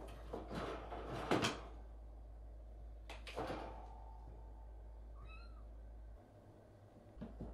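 Cats hissing in short bursts, the loudest about a second in with a sharp knock of the wire cage inside it, then a shorter hiss about three seconds in and one brief high mew near the five-second mark.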